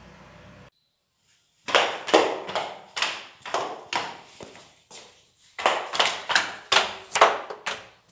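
Faint outdoor background hiss that cuts off abruptly, then after a second of silence a loud series of sharp knocks, about two to three a second, each dying away quickly. They come in two runs with a short pause between.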